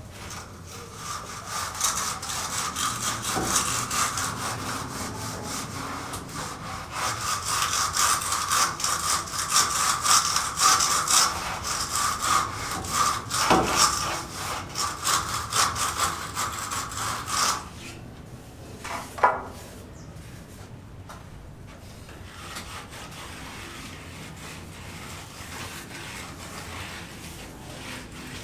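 Rapid, steady rasping strokes of a hand tool working a surface, in the manner of hand sawing. The strokes stop about two-thirds of the way through, leaving fainter rubbing and a single short scrape.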